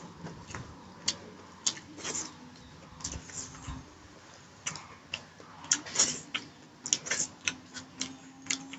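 Close-up chewing of pork curry: irregular sharp mouth clicks and short wet smacks, some louder than others, with no set rhythm.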